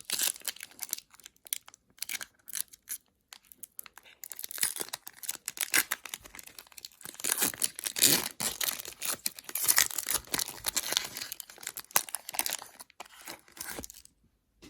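Trading-card pack wrapper being torn open and crinkled by hand, in irregular crackling rips that come thicker after a few seconds and stop suddenly near the end.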